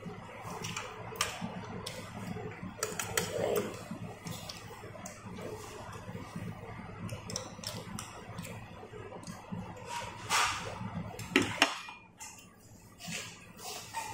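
Chopsticks and ceramic bowls and plates clicking and clinking as people eat, over a low room murmur, with a few louder knocks late on.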